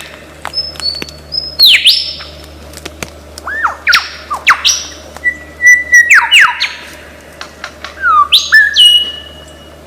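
Lyrebird singing a rapid medley of mimicked sounds: sharp downward-sweeping whistles, short steady whistles and scattered clicks, each different from the last.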